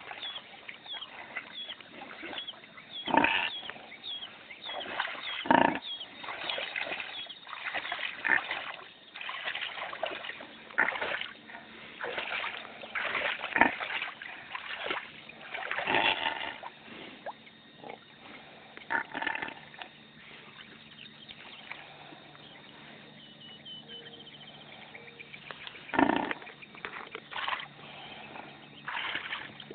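A pig making noises amid splashing water, as a run of quick short wet sounds with a few louder splashes spaced through it. It goes quieter for a few seconds near the end.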